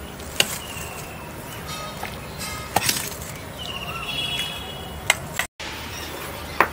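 Birds calling: a short, high trilled call repeated every two to three seconds, with a few sharp clicks and a brief dropout about five and a half seconds in.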